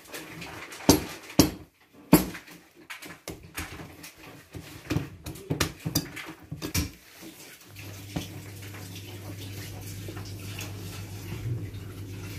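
A wire whisk beating batter in a glass mixing bowl: irregular clicks and knocks as the wires strike the glass. About two-thirds of the way through, the clicking gives way to a steady low hum with quieter stirring over it.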